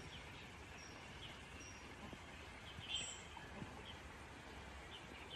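Quiet rural outdoor ambience: a faint steady hiss with a few short, high bird chirps scattered through it, the clearest one about three seconds in.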